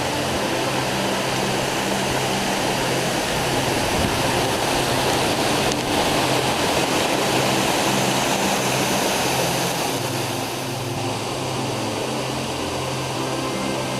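Dzhuryn waterfall: water pouring down in a loud, steady rush, easing slightly about ten seconds in.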